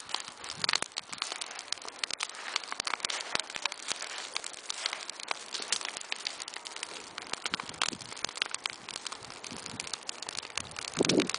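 Large scrap-wood bonfire crackling and popping, with quick irregular snaps over a steady hiss of burning. A louder, lower noise comes in right at the end.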